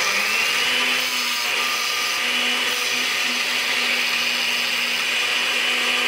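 Oster countertop blender motor running steadily on a thick load of frozen fruit, spinach and a little water, its pitch sagging briefly near the start before holding steady. The frozen fruit is slow to catch on the blades, so the blend stays lumpy.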